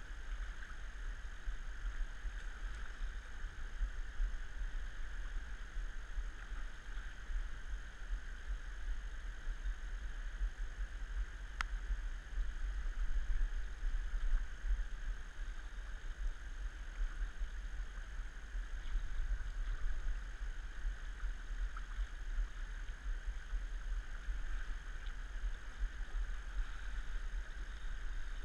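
Fast river current rushing, a steady hiss over a low rumble with wind buffeting the microphone, and one sharp tick about twelve seconds in.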